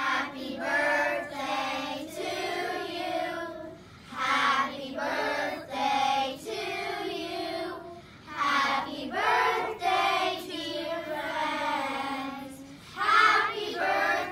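A group of young children singing together in unison, in short phrases of held notes.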